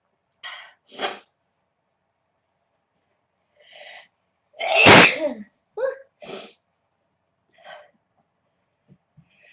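A young woman sneezing: one loud sneeze about five seconds in, with short breathy sounds before and after it.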